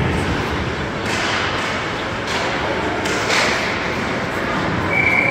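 Ice hockey play in a rink: several sharp knocks of sticks and puck over steady arena noise, then a referee's whistle blown as one steady high note near the end.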